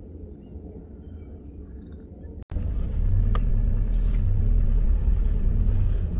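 A low, quiet hum, then, after a sudden cut about two and a half seconds in, the loud steady low rumble of a vehicle driving slowly, heard from inside it.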